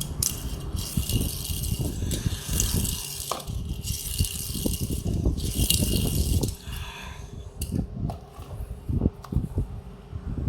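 Toy car packaging being handled and opened: crinkling plastic in two spells, with rattling and small knocks throughout.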